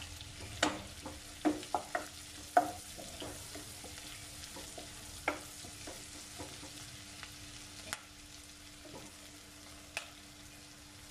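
Sliced red onions sizzling in butter and oil in a pan, being sautéed until they turn transparent. A spatula stirs and scrapes against the pan with frequent clicks in the first few seconds, then only a few single taps, over a faint steady hum.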